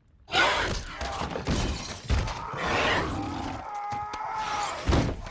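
Sudden loud crash of shattering and breaking, with further crashes and thuds, and a shrill sustained shriek from about three and a half seconds in: zombie-like creatures breaking in and attacking.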